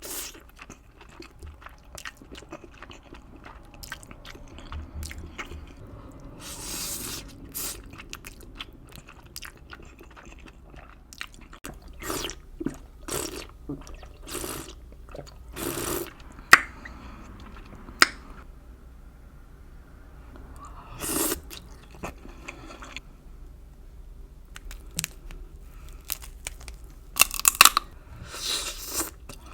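Close-miked eating of crab and spicy ramen: irregular chewing and crunching bites. There are sharp clicks throughout, two of them especially sharp a little past the middle, and a cluster of louder crunches near the end.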